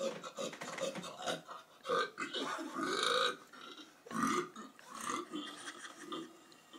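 Someone burping on purpose, a string of separate belches, the longest drawn out for over a second a little after two seconds in.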